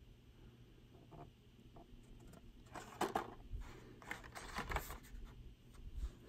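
Plastic blister packs on Hot Wheels cardboard cards crinkling and clicking as they are handled and picked up, in two short spells about three seconds in and again between four and five seconds.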